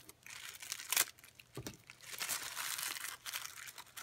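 Metallic gift wrap and tissue paper crinkling and tearing as a package is unwrapped by hand, with a sharp crackle about a second in and denser, continuous crinkling from about halfway.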